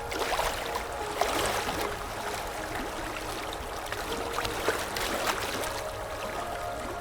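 Sea waves washing in, a steady rush of water broken by small splashes.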